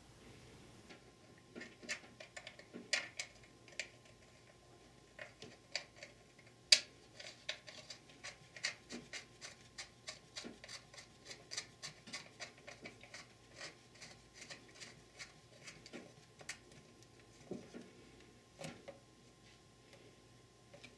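Faint, irregular small metal clicks and scrapes, several a second, as a nut is threaded by hand onto the end of the selector shaft that holds the manual valve lever of a Ford E4OD transmission, with one sharper click about seven seconds in.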